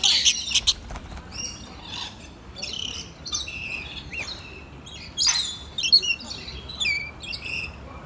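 Lorikeets giving many short, shrill screeches and chirps, loudest just after the start and again around five to six seconds in.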